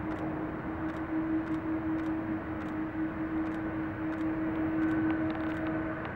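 Boeing 777-200's twin jet engines running at taxi power: a steady whine with a low tone, and higher tones growing a little stronger near the end.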